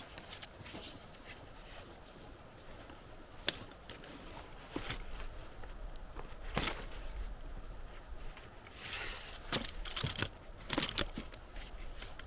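Fabric seat of an REI Co-op Flexlite backpacking chair being fitted onto its frame poles: rustling, scraping fabric with a few sharp clicks and knocks, several of them close together near the end.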